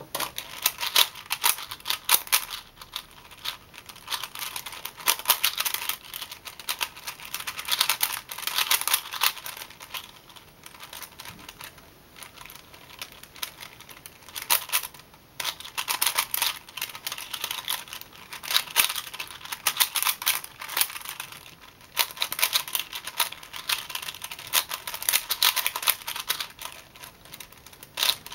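Plastic 4x4x4 puzzle cube being turned fast by hand: rapid clicking and clacking of the layers, in flurries broken by short pauses.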